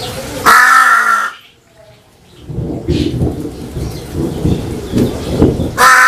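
A crow cawing twice, one loud harsh caw about half a second in and another near the end, with low, irregular rumbling noise in between.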